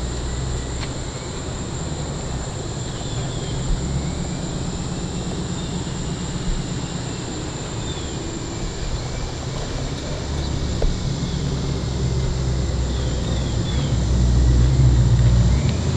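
Car engine idling with a low, steady rumble that grows louder near the end.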